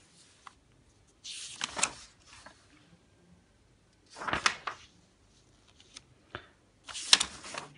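Sheets of printer paper being turned over and handled, three separate rustles a few seconds apart.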